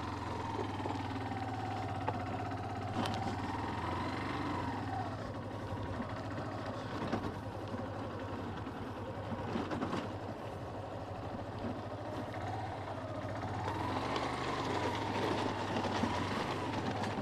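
Motorcycle engine running steadily at low speed, a constant low hum, with a whine that rises and falls in pitch a few times over it.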